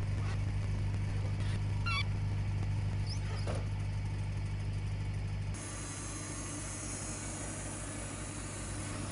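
Wood-Mizer LT35 portable bandsaw mill running steadily, with a few goose honks over it in the first few seconds. About five and a half seconds in the sound changes abruptly to the sawhead cutting through a Douglas fir log, a harsher, hissier run.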